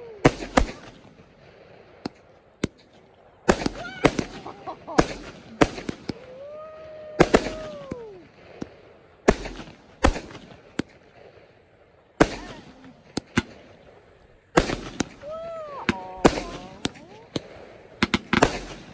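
Fireworks going off: sharp bangs from bursting shells in irregular clusters, with crackling between them. A few drawn-out tones rise and fall between the bangs, and the bangs come thickest near the end.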